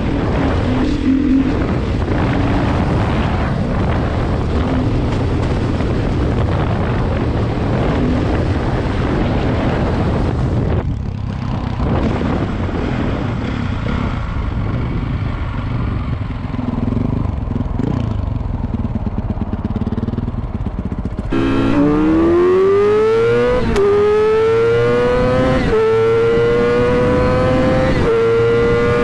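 Motorcycle riding with wind rushing over the helmet-mounted microphone and the engine running underneath. About three quarters of the way in, a motorcycle engine accelerates hard through the gears, its pitch climbing and dipping at each upshift.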